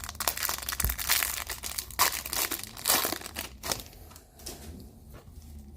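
A foil trading-card pack being crinkled and torn open by hand, a crackly rustle with a few louder crinkles in the first few seconds, then fainter handling of the cards.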